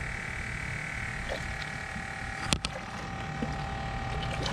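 A single sharp knock against the aluminum jon boat a little past halfway, over a steady background hum with a faint high tone and a few small ticks.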